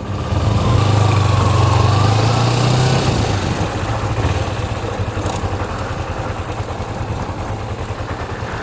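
Motorcycle engine running as the bike moves off: its note is louder and rises a little over the first few seconds, then settles lower and steadier as the bike slows.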